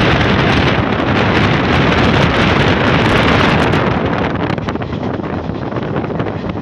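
Wind rushing hard over the microphone held out from the side of a fast-moving passenger train, over the steady running noise of the coach on the rails. The rush eases somewhat about four seconds in.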